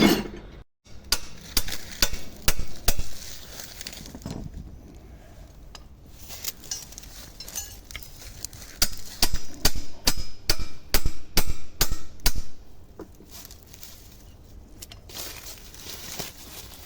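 Sharp knocks in two runs: about six, roughly two a second, in the first few seconds, then a quicker run of about a dozen, roughly three a second, in the middle.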